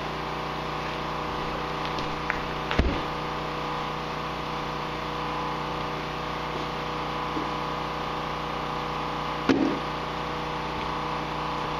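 Steady hum of several fixed tones, with a light knock about three seconds in and a sharper one about nine and a half seconds in as hands handle parts on the snowmobile's open front end.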